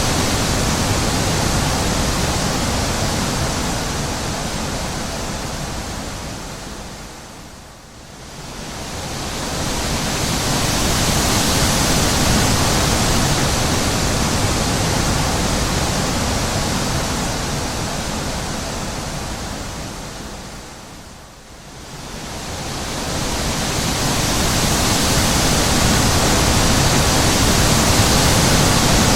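Wind blowing in a steady rush that slowly dies down and swells back up twice, fading lowest about eight seconds in and again about twenty-one seconds in.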